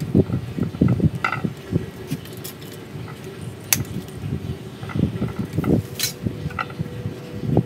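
Handling noise from gloved hands working over a bonsai and turning its glazed ceramic pot: bursts of rustling and scraping, with two sharp clinks about four and six seconds in.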